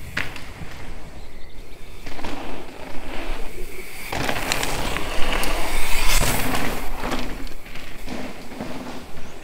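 Mountain bike riding over a loose gravel trail: tyres crunching and hissing over the stones, with rattles and knocks from the bike, swelling to its loudest in the second half.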